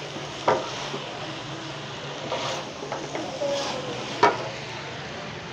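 A wooden spatula stirring and tossing spaghetti in a large metal pot, with scraping and a few knocks against the pot, the loudest about four seconds in, over a steady hiss from the hot pan.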